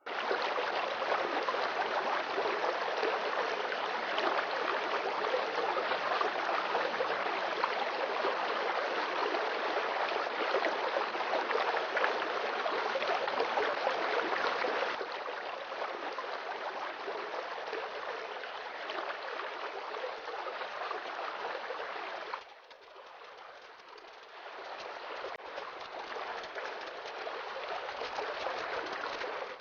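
Water running and splashing steadily down a slate indoor fountain. Its level drops a step about halfway through and again later on.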